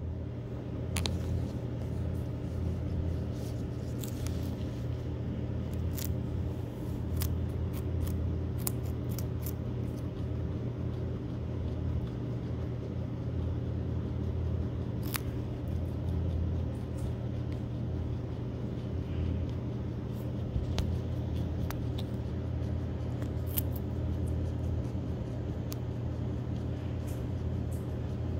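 Guinea pig crunching a piece of raw carrot: irregular sharp crunches, sometimes several close together, over a steady low hum.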